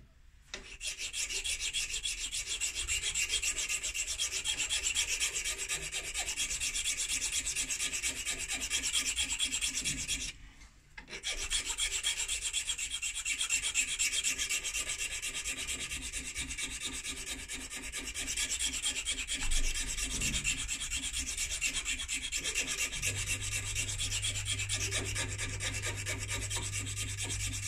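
A hand file rasping back and forth over a stem held in a lathe chuck, with a short pause about ten seconds in.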